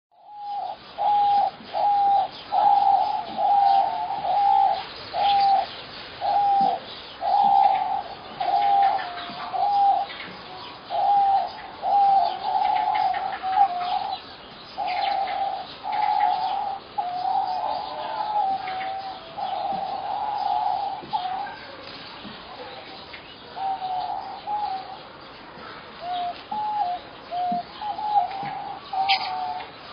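Birds calling: a long series of short notes at a steady pitch, repeated somewhat more than once a second, that run into longer, jumbled calls about halfway and grow fainter and sparser toward the end, with fainter chirps behind.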